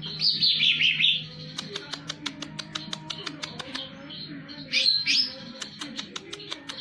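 Green leafbird (cucak ijo) singing: two loud sweeping phrases, one at the start and one about five seconds in, over a fast run of sharp ticks.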